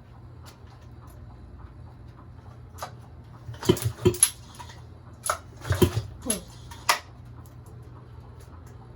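Antique Corsair 5 hp outboard motor being worked by hand: a quick run of sharp metallic clicks and knocks with a few short squeaks, one falling in pitch, over a steady low hum.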